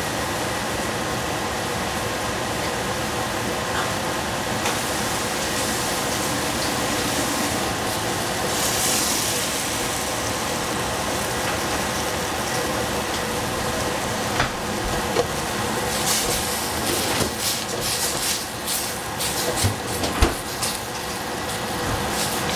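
Broccoli and shrimp cooking in a pot on a lit stove: a steady sizzling hiss over a constant hum. From about two-thirds of the way through, scattered clicks and knocks join in.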